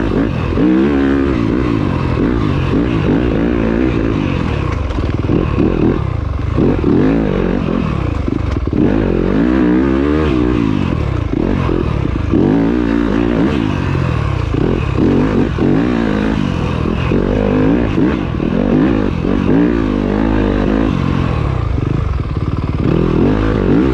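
Dirt bike engine being ridden, the revs climbing and dropping again every second or two.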